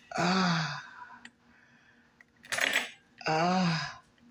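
A woman's wordless drawn-out groans, two of them, each rising then falling in pitch, with a short sharp rasp between them.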